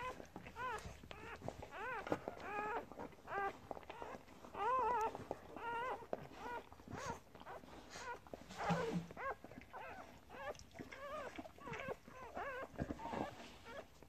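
Newborn English Springer Spaniel × Kelpie cross puppies squeaking and whimpering while nursing at their mother. It is a busy run of short, high calls that rise and fall in pitch, several a second and often overlapping.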